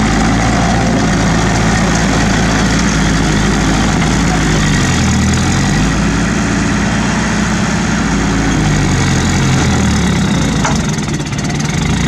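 Diesel engine of a small crawler bulldozer running hard as its blade pushes against a stuck dump truck, the engine note sagging and recovering a couple of times as the load comes on and eases.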